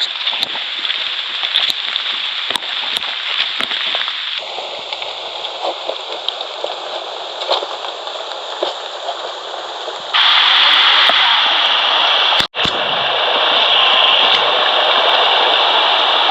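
Small stream rushing over rocks, a steady loud rush of water whose sound changes abruptly about four and again about ten seconds in.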